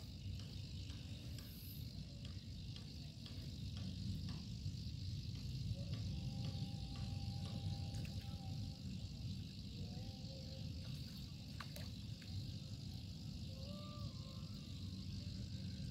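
Quiet outdoor ambience: a steady low rumble with a steady high hiss over it, a few faint ticks, and some faint short tones about halfway through and near the end.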